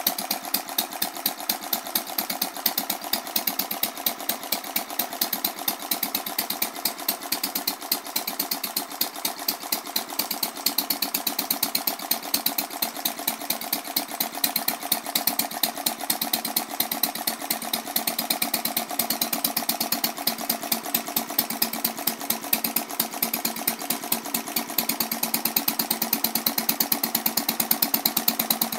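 Scale-model Centaur horizontal stationary engine with spark ignition, running steadily: an even, fast beat of sharp firing and valve clicks.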